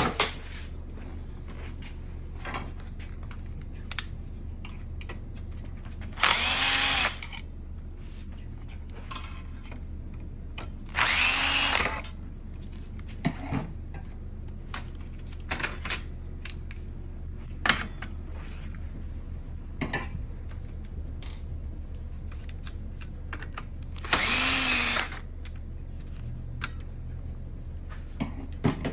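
Power driver running in three short bursts of about a second each, its motor whining up and down, as it backs out the screws holding a copier's transfer belt cleaning blade. Scattered clicks and knocks of metal parts being handled between the bursts.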